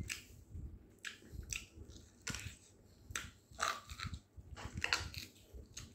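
A person eating by hand close to the microphone: chewing and biting with wet mouth clicks and lip smacks, an irregular run of short crackling sounds several times a second.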